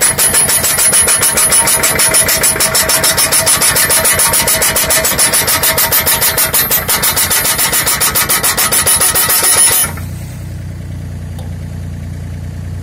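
Hydraulic hammer with a post-driver attachment on a mini excavator, pounding a wooden post into the lagoon bed with a rapid, even run of metal blows. The hammering stops suddenly about ten seconds in, leaving the excavator's engine idling.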